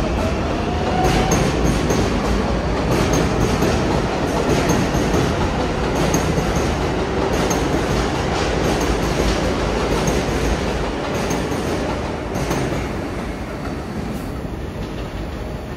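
R188 subway train moving along the track: a steady rumble with wheels clattering over rail joints and a faint rising motor whine in the first second, easing off slightly near the end.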